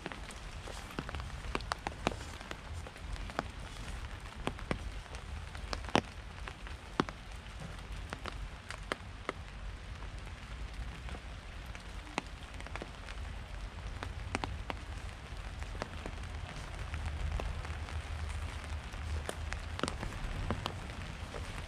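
Raindrops falling on a surface as scattered, irregular sharp drips over a soft hiss, with a steady low rumble underneath.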